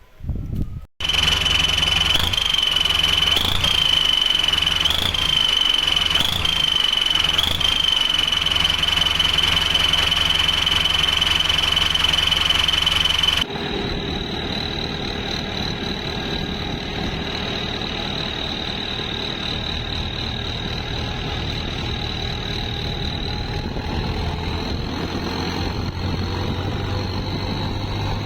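Tractor diesel engine running with an add-on turbo whistle fitted, giving a steady high whistle over the engine. The whistle swells briefly with about five short throttle blips. About halfway through it changes suddenly to a slightly higher, quieter whistle that holds steady.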